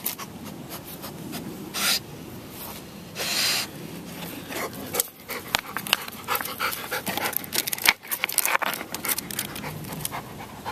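A dog panting and sniffing as it paws and noses among the stones of a rock wall, with scraping and many short sharp knocks of rocks being shifted.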